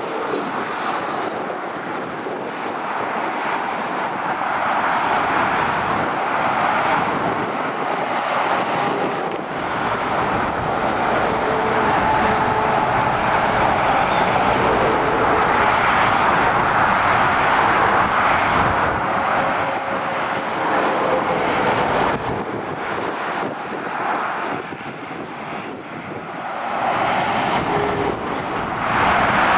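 Motorway traffic passing by, lorries and cars: a continuous rush of tyre and engine noise that swells and fades as vehicles go past. It eases for a few seconds near the end, then rises again.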